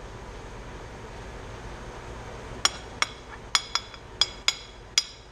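Metal spoon clinking against the dishes while serving instant rice: about seven sharp, ringing clinks, starting about halfway through.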